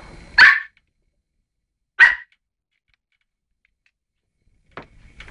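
West Highland white terrier barking twice, two short sharp barks about a second and a half apart, followed near the end by a few light knocks.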